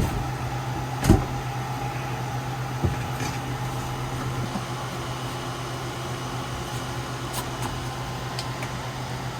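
A steady low hum, with a knock about a second in and a lighter knock near three seconds.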